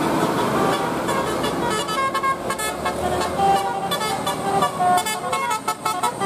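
Indonesian bus 'telolet' horn, a multi-tone air horn, playing a fast run of short notes that jump up and down in pitch.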